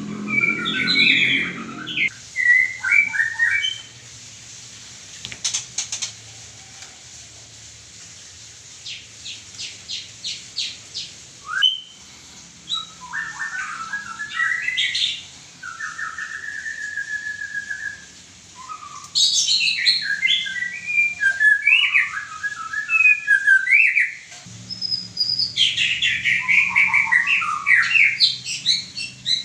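White-rumped shama (murai batu) singing: bursts of varied, loud whistled phrases separated by short pauses, with a run of rapid clicking notes about a third of the way in.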